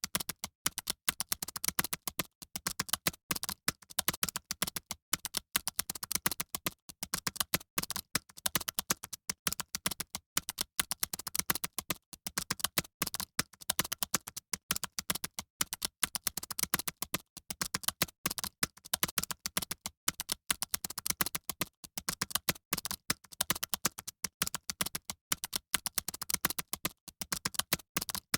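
Fast typing on computer keyboards: a rapid, irregular, unbroken stream of key clicks, like an exam hall full of typists.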